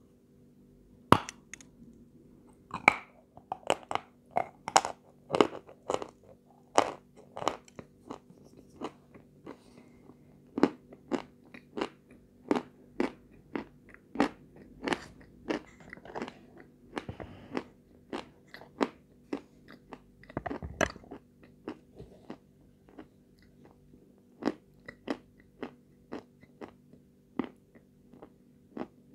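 Close-up crunching of lumps of powdery edible chalk being bitten and chewed: a run of sharp, crisp crunches, about one to two a second. A faint steady hum runs underneath.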